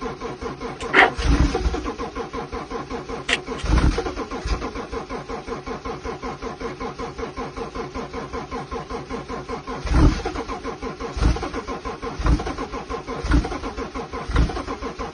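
Car engine being cranked by its starter without catching: a steady, rapid rhythmic chugging that goes on and on, with several louder thumps along the way.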